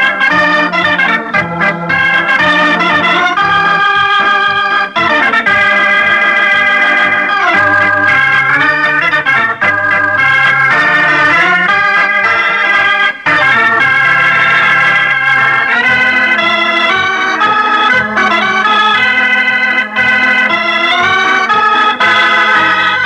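Closing theme music of an old-time radio broadcast: a melody over a moving bass line, which drops away at the very end.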